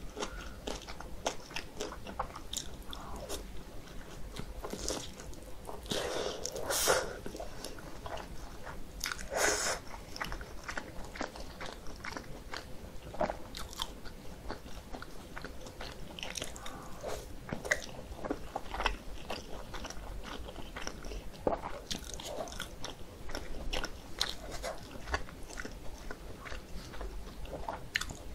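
Close-miked chewing and wet mouth sounds of a person eating thin-skinned Korean dumplings (mandu): a steady run of small clicks and bites, louder for a few seconds about six to ten seconds in.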